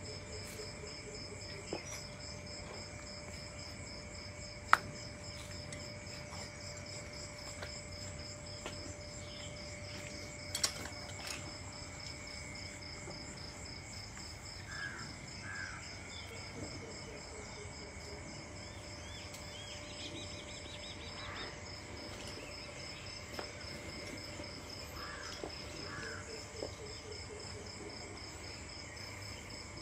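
Steady trilling of crickets and other insects, with a few sharp clicks and a couple of faint short bird chirps.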